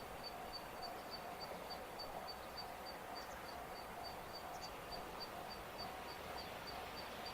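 Faint outdoor night ambience: a high-pitched chirp repeating steadily about three or four times a second and a lower pulsing call, over a soft even hiss, with no train passing.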